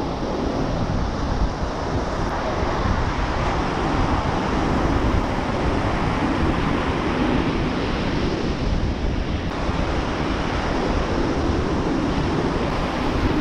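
Ocean surf breaking and washing up the beach in a steady roar that swells and eases with each wave, with wind rumbling on the microphone.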